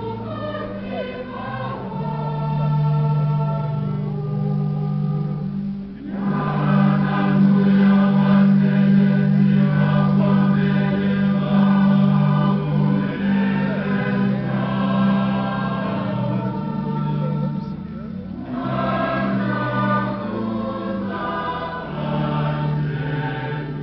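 A choir singing a church hymn in long held phrases over steady low notes, with short breaks between phrases about six and eighteen seconds in.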